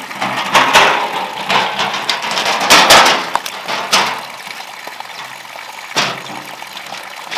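Water splashing and pouring in uneven surges, loudest in the first few seconds, with a few knocks, the sharpest about six seconds in.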